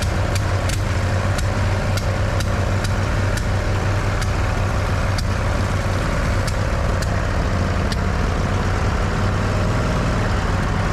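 John Deere riding mower's small air-cooled engine running steadily at a constant speed, with light sharp ticks at uneven intervals.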